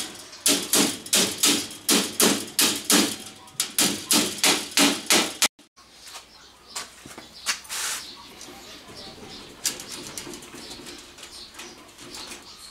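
Steel hammer striking heavy chain-link wire against a steel frame, about two blows a second; the hammering stops abruptly about five seconds in, leaving only a few faint clicks.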